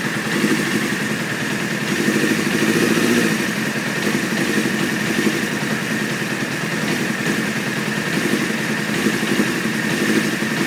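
1995 Honda CBR600F3's inline-four engine idling roughly and unevenly at a raised idle of about 2200 rpm, its note swelling and sagging every second or two, with a steady high whine over it. It is the rough idle of a bike that is hard to start and often stalls at idle.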